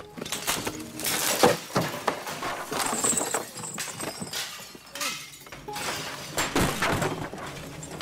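Irregular crashes, knocks and clatter of objects being knocked about and broken, mixed with rustling of hay.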